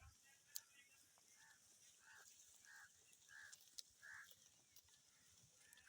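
Faint short animal calls repeating every half second or so, over a steady high hiss.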